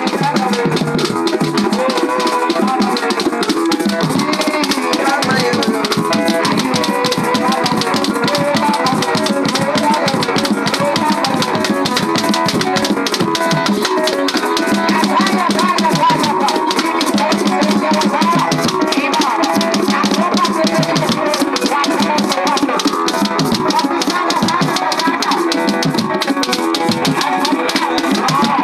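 Mnanda dance music played live on an electronic keyboard: a fast, steady beat of drums and rattling shaker-like ticks under a shifting keyboard melody, loud and continuous.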